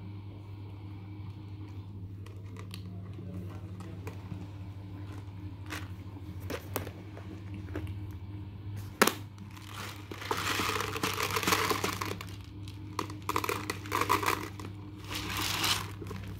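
Kittens eating dry kibble from a plastic bowl, with a few sharp clicks, over a steady low hum. From about ten seconds in, plastic crinkles loudly in two long stretches as it is handled.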